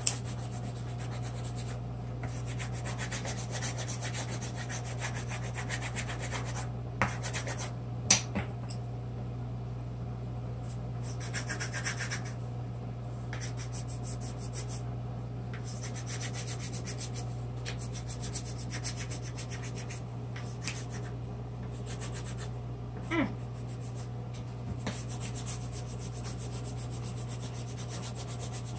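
A colored pencil scribbling rapidly back and forth on paper on a clipboard, a steady scratchy rubbing of many quick strokes, over a steady low hum. A couple of sharp clicks come about seven and eight seconds in.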